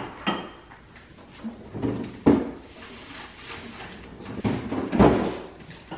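Refrigerator door opened and a fridge drawer opened and shut while items are moved about inside, giving a sharp knock about two seconds in and a heavy thud about five seconds in.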